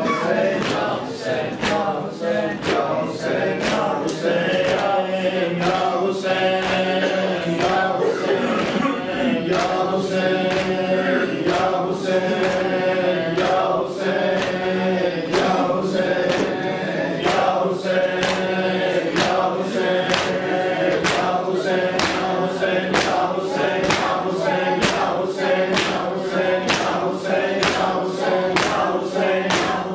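A group of men chanting a noha lament in chorus, with a steady beat of open hands striking chests (matam), a little under two strikes a second.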